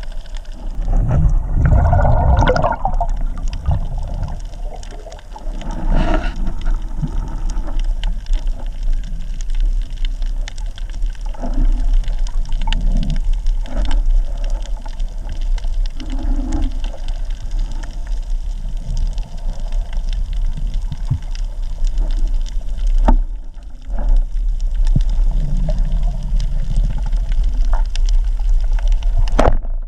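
Underwater sound picked up by a camera in a waterproof housing: a steady low rumble and rush of moving water with scattered small clicks and crackles, broken by several louder muffled swells and thumps.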